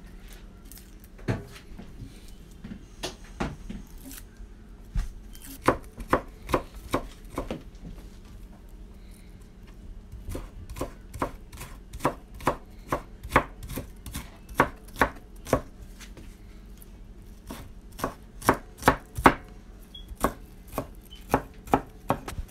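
Chef's knife chopping red onion on a wooden cutting board, the blade knocking sharply on the wood. The knocks come sparse and irregular at first, then settle into a steady rhythm of about two to three a second from around six seconds in.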